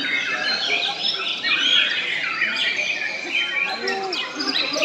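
White-rumped shama (murai batu) singing a fast, unbroken stream of varied whistled phrases and chattering notes, with other caged songbirds singing over it.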